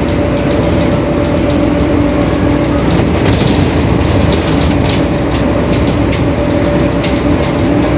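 Mercedes-Benz OF-1721 city bus under way, heard from inside: a steady rumble from the driveline and road with a constant whine from the growling differential, and frequent short rattles from the body.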